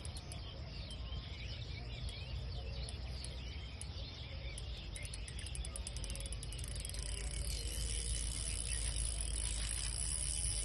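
Outdoor ambience of insects chirping in rapid high pulses, with scattered small bird chirps, over a steady low rumble.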